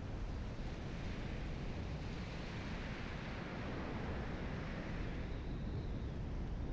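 Wind buffeting the microphone with a steady low rumble, over the hiss of surf washing among shoreline rocks; the wash of the water swells about halfway through.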